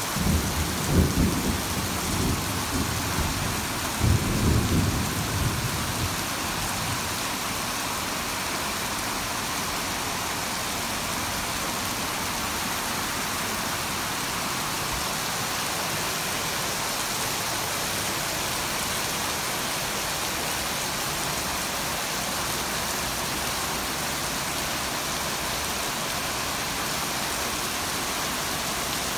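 Heavy rain pouring steadily in a thunderstorm, with low rumbles of thunder rolling through the first few seconds before only the even hiss of the downpour remains.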